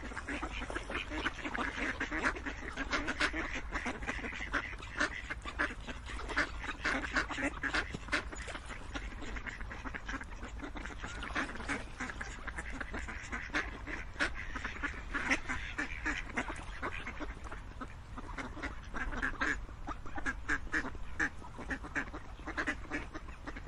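A flock of ducks quacking, with many short quacks overlapping in a busy chatter.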